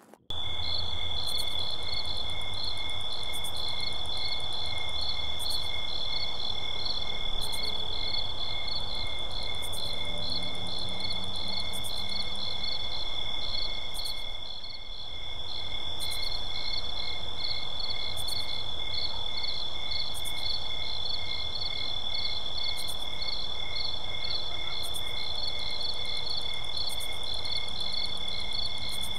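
Night chorus of calling insects: a steady high trill with evenly pulsing chirps a few times a second over a faint low background rumble, cutting in suddenly at the start.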